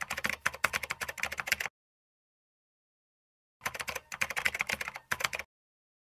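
Keyboard typing sound effect for text being typed out on screen, in rapid clicks: two runs of a second and a half to two seconds each, about two seconds apart.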